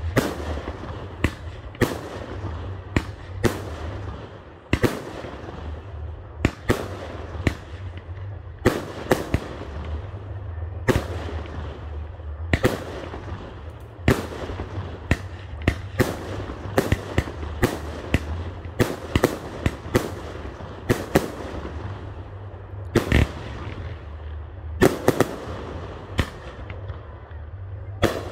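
Aerial fireworks going off: an irregular string of sharp bangs, roughly one or two a second, each with a short echoing tail, over a steady low rumble.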